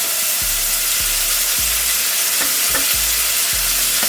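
Chopped onions sizzling as they fry in hot oil in a pot, a steady hiss.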